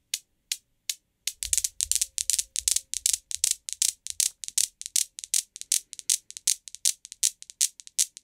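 Steel balls of a Newton's cradle clacking against each other in sharp, ringing clicks. The clicks are spaced about two a second at first, thicken into a rapid flurry about a second and a half in, then settle into steady clicking about three times a second.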